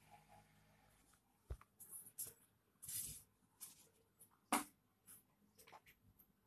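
Faint, scattered clicks and short rustles over quiet room tone, the sharpest click about four and a half seconds in.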